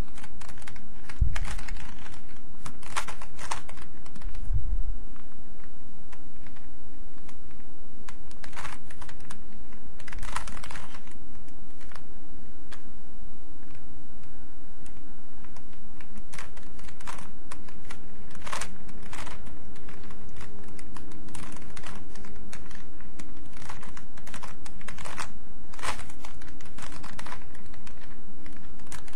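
Rubik's Cube turned one-handed: irregular plastic clicks and clacks as the layers are twisted, with a couple of dull thumps in the first five seconds.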